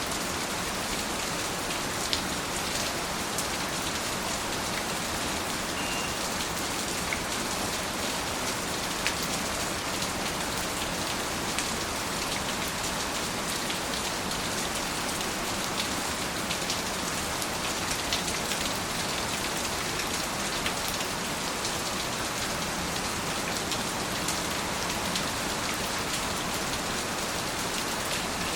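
Steady rain: an even hiss of falling rain with scattered sharper drop ticks throughout.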